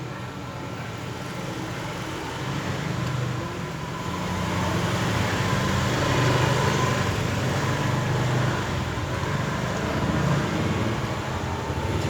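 Steady low hum of road traffic, growing louder about four seconds in.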